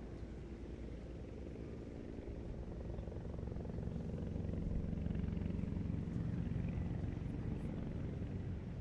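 Low engine rumble of a vehicle or aircraft, growing louder through the middle and easing off near the end.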